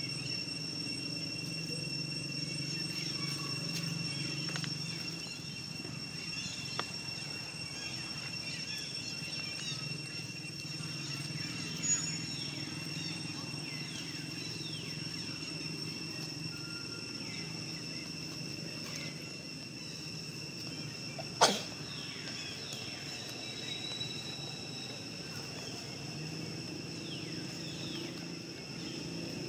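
Outdoor ambience: a steady high-pitched insect drone over a low rumble, with a sharp knock about two-thirds of the way through.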